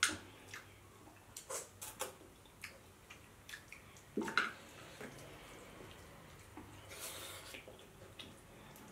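Close-miked wet eating sounds from two people eating by hand: lips smacking, sucking and slurping, with scattered small clicks. The loudest come right at the start and about four seconds in.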